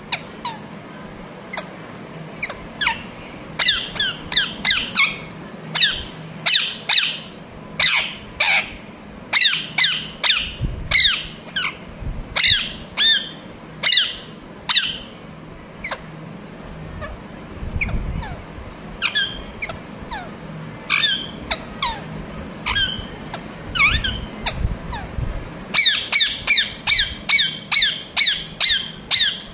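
Parrot giving short, sharp chirps and squawks in quick series, with a lull midway and a fast run of about three calls a second near the end.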